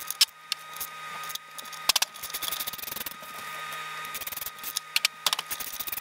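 Hand ratchet and socket on an extension clicking and rattling as the brake backing-plate bolts are turned out of a Dana 44 axle, with short runs of clicks about two seconds in and again near the end.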